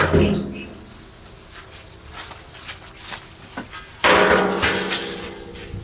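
Two hard knocks, one at the start and one about four seconds in, each followed by a ringing hum that fades over a second or two, with a few lighter taps between.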